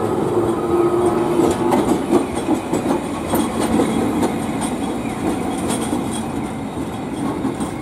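Toyama city tram car 7023, an old 7000-series streetcar, running past close by: steady rolling noise of steel wheels on the rails with scattered clicks from the track, and a hum that fades after about two seconds.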